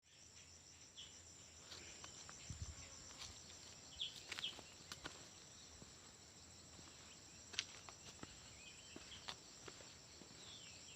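Faint outdoor ambience of insects droning in a steady high-pitched buzz, with scattered faint clicks and a few short chirps.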